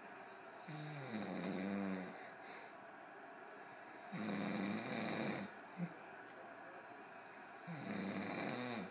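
A man snoring: three loud, rasping snores of just over a second each, about three and a half seconds apart, with quiet pauses between breaths.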